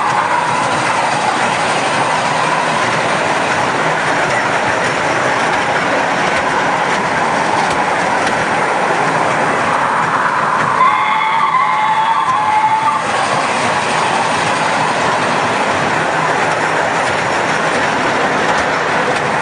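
Children's electric mini train ride running round its small circular steel track: a steady noise of the wheels on the rails. A brief pitched tone sounds about eleven seconds in and lasts about two seconds.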